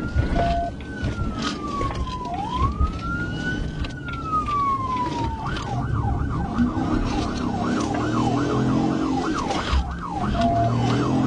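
Police car siren in wail mode, rising and falling slowly twice, then switching about five and a half seconds in to a fast yelp of about two cycles a second. Patrol car engine and road noise run underneath.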